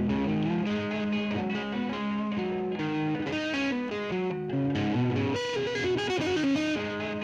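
Distorted electric guitar playing through a Donner looper pedal: a looped riff layered with live playing, with a held low note under a run of notes and a bent, wavering note about six seconds in.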